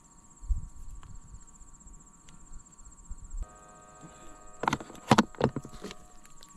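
Night insects chirring steadily in a continuous high-pitched trill. A dull bump comes about half a second in, and a cluster of sharp clicks and knocks comes in the last two seconds as the fishing rod, reel and line are handled.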